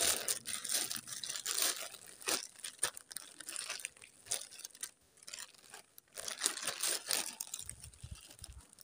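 Plastic packaging crinkling and rustling as a garment in a clear poly bag is handled and pulled about against a plastic courier mailer, in fits and starts with a lull about halfway through.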